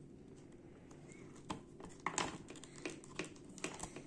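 Small plastic clicks and taps of an action figure and its accessories being handled: a handful of short, light clicks at uneven intervals, starting about halfway through.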